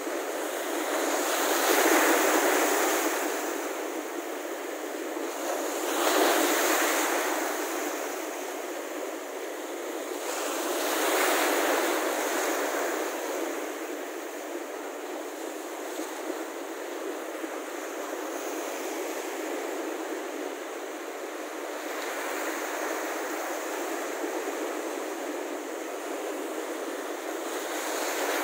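Small Baltic Sea waves washing in over sand at the water's edge, a foaming hiss of surf that swells with each wave about every four to five seconds at first, then runs as a more even wash.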